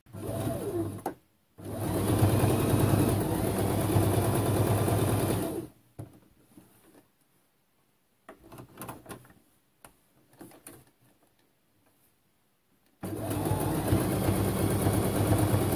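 Domestic electric sewing machine stitching a seam through two layers of fabric and batting. It runs in a short burst at the start, then steadily for about four seconds. After that it stops for several seconds, leaving only faint scattered rustles and clicks of the fabric being handled, and it runs steadily again for the last three seconds.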